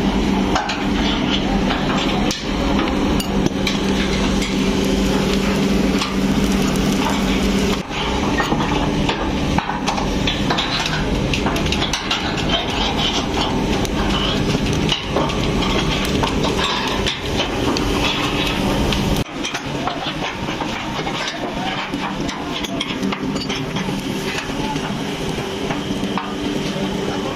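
Steady factory machinery noise with a low hum, overlaid by frequent sharp metal knocks and clanks as the bolted clamps on a fabric-steaming drum's lid are worked with a hand tool. The hum drops away about two-thirds of the way through.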